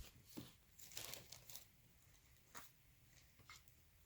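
Faint rustling and a few soft clicks as hands sort through a stash of yarn and craft pieces such as pom-poms and tassels.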